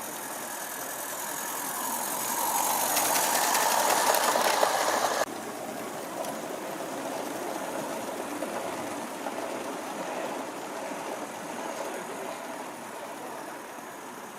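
Gauge 1 model train running on garden track, growing louder as it comes near, then cut off abruptly about five seconds in; a quieter, steady running sound follows.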